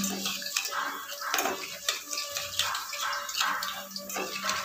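Metal spoon stirring a watery spice paste in a small steel bowl: irregular sloshing and scraping, with light clinks against the bowl.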